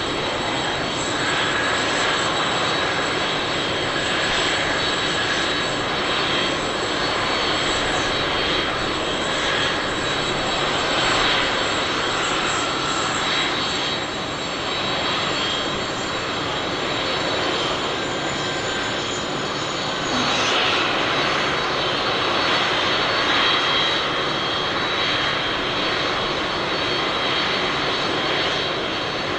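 Jet engines of a Boeing 747-400D airliner running steadily, with a strong rush of noise and a high whine over it. The highest whine slides slightly down in pitch and drops away about twenty seconds in.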